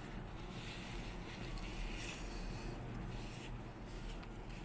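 Soft, faint rustling of a damp cloth being unfolded and dabbed against the face, over a low steady room hum.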